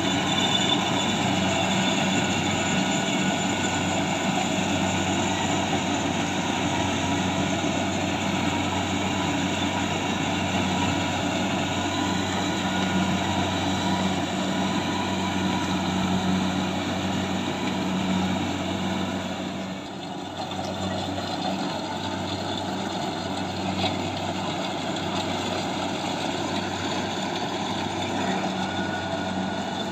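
Rice combine harvester running steadily: an engine hum under the broad whir of its machinery, dipping briefly about two-thirds of the way through.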